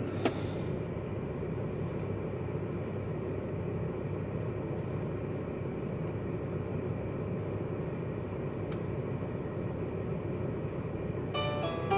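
Steady car-cabin background rumble with the stereo silent between tracks, broken by two sharp clicks, one just after the start and one about three seconds before the end, as the track is skipped. Music from the stereo starts again just before the end.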